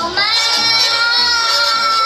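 A young boy singing one long, held note into a microphone, with a mariachi band playing underneath.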